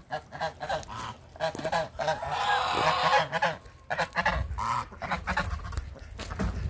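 A small flock of Chinese geese honking: many short calls, repeated and overlapping, densest and loudest from about two to three seconds in.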